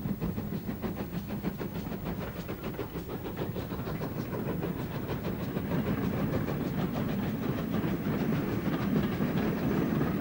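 Passenger train coaches rolling past along a station platform, their wheels clicking in a steady rhythm over the rail joints over a continuous rumble. The train gets slightly louder in the second half.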